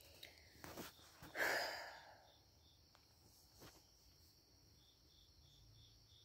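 Faint chirping of a cricket, short high chirps about three a second, over a steady high hiss. A brief breathy rush about a second and a half in is the loudest sound, with a few light clicks around it.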